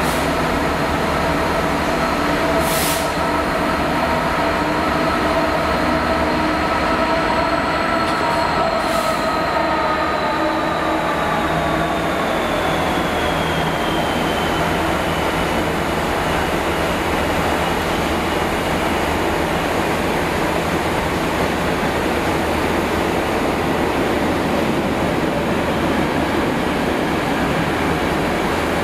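Class 66 diesel locomotive with a two-stroke V12 engine passing under power. Its engine note drops in pitch as it goes by, about halfway through. A long rake of covered freight wagons follows with a steady roar of wheels on rail.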